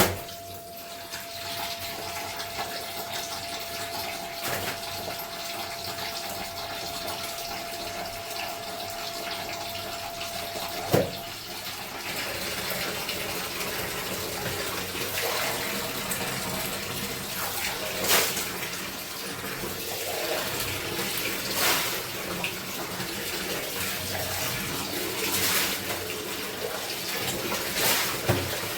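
Water running and splashing as clothes are washed by hand. A thin steady tone runs for about the first ten seconds and ends with a sharp knock. After that, a splash comes every few seconds.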